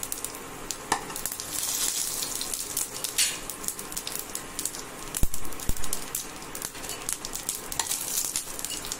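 Whole cumin seeds and bay leaves sizzling in hot oil in a nonstick frying pan, a steady hiss with many small pops as the spices temper. Two dull low thumps come a little past halfway.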